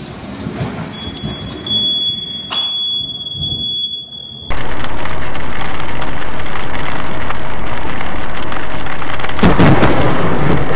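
Thunder rumbling away after a close lightning strike, with a steady high beep for a few seconds. About four seconds in, heavy rain hammers a car's windshield in a loud, even roar, with a deeper rumble and crackle near the end.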